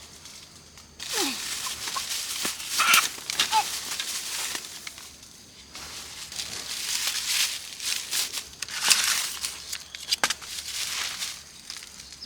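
Roosters being caught by hand: noisy rustling and scuffling in two long bursts, with sharp clicks and a few short cries.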